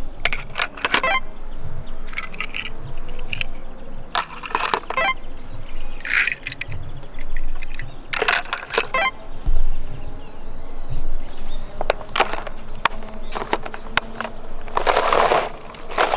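Small die-cast toy cars clicking and clattering against the hard plastic of a toy car-carrier case as they are handled and pushed into its slots, in short bursts of clicks every few seconds. Near the end comes a louder, longer rustling scrape.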